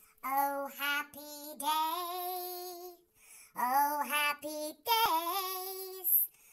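A woman's voice singing a short tune in a comic, childlike voice, with several long held notes and a pause about halfway through.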